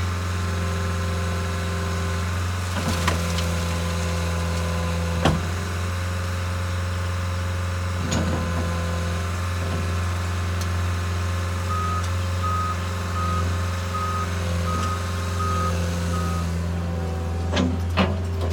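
Cat 277B turbo diesel tracked skid-steer loader running steadily, with its backup alarm beeping about seven times in the second half. A few short knocks over the engine, two of them near the end.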